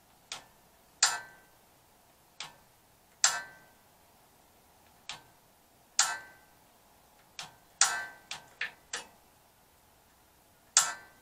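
Piezo spark igniter on a gas water heater's control valve clicking sharply about a dozen times at an uneven pace, some snaps with a brief metallic ring, as it is pressed to light the pilot.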